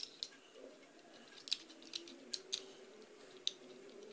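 Plastic Lego block toy train pushed slowly by hand along a plastic track, giving faint scattered clicks as the wheels and blocks knock on the rails and sleepers.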